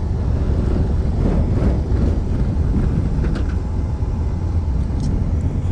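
Steady low road rumble inside a moving vehicle's cabin, with a couple of faint clicks.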